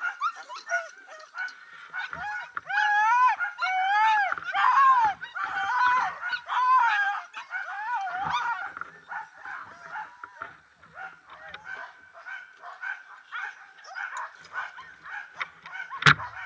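A team of sled dogs yelping and whining in an overlapping chorus of short rising-and-falling cries, the excited clamour of dogs being hitched up to run. A single sharp knock comes near the end.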